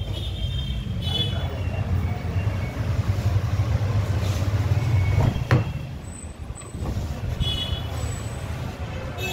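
Low rumble of a vehicle engine running; a sharp knock about five and a half seconds in, after which the rumble drops. Short high chirps now and then.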